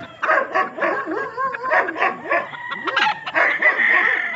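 Several animals calling over one another in short yelps that rise and fall in pitch, with one longer held call about three and a half seconds in.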